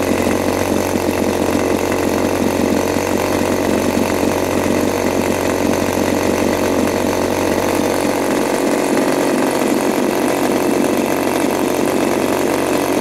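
Turnigy TP31-T 31cc twin-cylinder two-stroke gasoline engine running steadily on a test stand, driving a wooden propeller. This is its first run, with the engine being run in on a richer oil mix.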